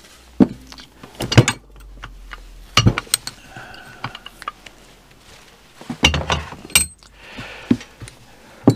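Scattered metal clicks and clinks as hand tools and small steel parts (pliers, a spring, the bench vice) are handled on a workbench: a few single knocks early on, a cluster of clinks about six seconds in, and one more near the end.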